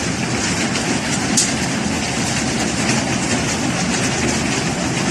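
Heavy hail falling: a steady, dense clatter of countless hailstones striking, with no break.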